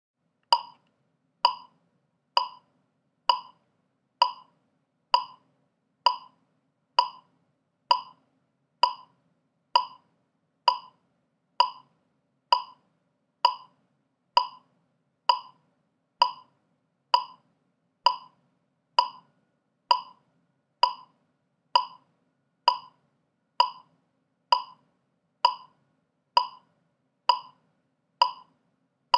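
Metronome click track ticking steadily at 65 beats per minute, a little under one click a second, every click the same with no accented beat. The clicking starts about half a second in, after silence.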